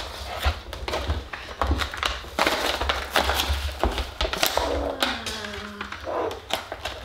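Plastic blister packaging and cardboard toy boxes being pulled apart and handled, giving irregular crackles, clicks and taps.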